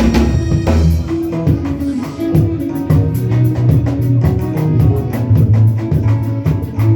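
Live band music with drum kit, bass and guitar playing a steady, quick beat.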